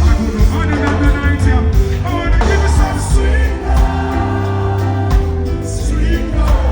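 Live reggae-dancehall concert music through a festival sound system: heavy bass and steady drums, with a voice singing at times.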